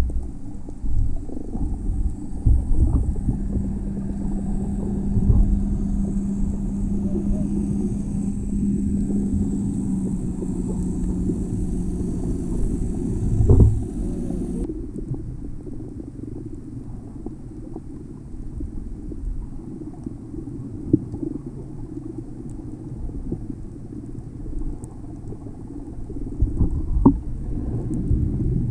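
Muffled underwater rumble of water moving around a camera in its waterproof housing while snorkelling, with a few short knocks. A steady low hum runs through the first half and stops about halfway.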